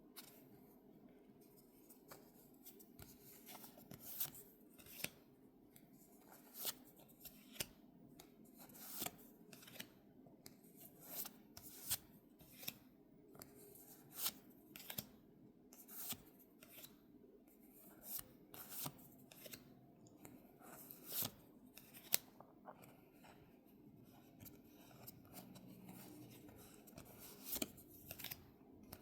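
Faint, repeated short clicks and snips of Pokémon trading cards and card packaging being handled, about one every half second to one second.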